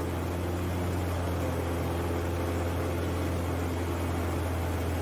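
Aviat Husky A-1B's Lycoming O-360 engine and propeller in flight, a steady low drone heard from inside the cockpit.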